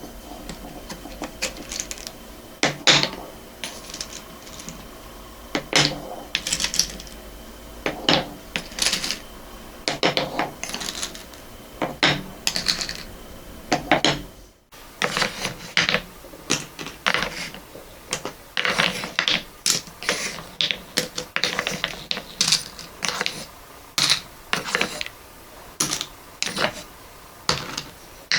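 Small wooden balls clicking and clattering against one another as they are sorted and dropped, in irregular clusters of sharp clacks.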